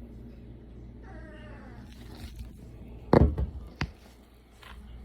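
Young puppy giving a short, wavering whine about a second in. About two seconds later there is a sharp knock, the loudest sound, then a small click.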